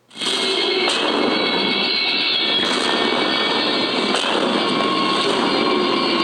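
Movie-trailer sound effects: a loud, dense rushing noise that cuts in abruptly after a moment of silence and holds steady.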